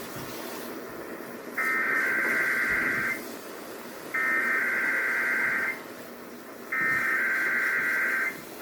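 Emergency Alert System SAME header tones: three identical bursts of warbling data tones, each about a second and a half long with about a second of hiss between them, sent over a weather-radio channel to encode the alert, here for a test of the emergency alert system.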